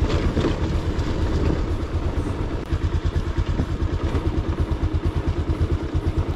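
Motorcycle engine running steadily at low revs, a fast even throb of about ten beats a second.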